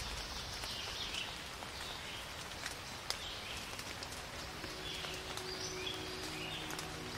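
Faint background soundtrack: a soft rain-like hiss with short high calls repeating about every second and a half. Steady low musical tones come in about two-thirds of the way through.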